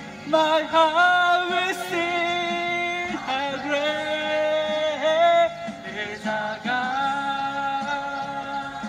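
A man singing a worship song into a handheld microphone in long held notes, sliding up into several of them.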